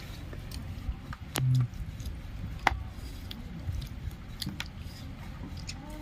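Eating sounds: chewing, and meat being pulled from a cooked goat head by hand, with scattered small clicks and one sharper click a little before three seconds in. A brief low hum about a second and a half in is the loudest thing.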